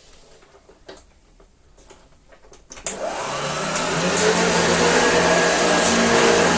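Vintage Hoover upright vacuum cleaner switched on almost three seconds in, after a few faint handling clicks: the motor whines up to speed, rising in pitch, then runs steadily and loudly.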